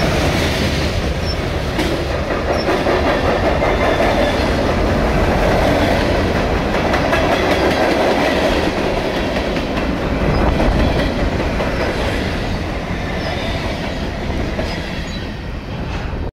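Freight cars of a mixed freight train, covered hoppers and a tank car, rolling past close by. Steel wheels rumble steadily on the rail with clicks over the joints, fading a little near the end as the last car goes by.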